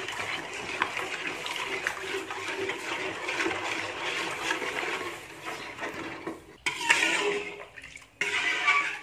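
Metal spoon stirring a thin, uncooked batter of rice flour, tapioca starch and coconut milk in a non-stick wok, the liquid sloshing with light scrapes and clicks against the pan as it is mixed smooth before cooking. The sound cuts out abruptly twice near the end.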